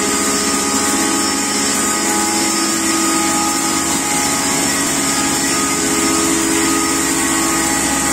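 Double-stage blower-type pulveriser (flour grinding mill) running steadily: an even mechanical hum with several steady tones and a high hiss.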